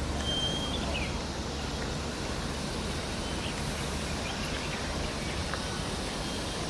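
Steady outdoor background noise with a low hum, and a few brief high chirps and a short high tone in the first second or so.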